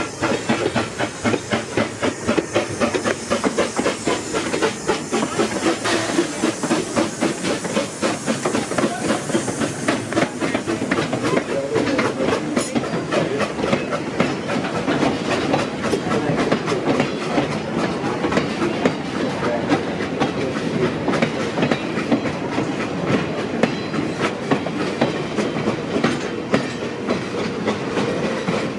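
The Edison steam locomotive and its train running, with a rapid rhythmic clatter of exhaust beats and wheels on the rails over a steady steam hiss. The beats quicken after the first few seconds.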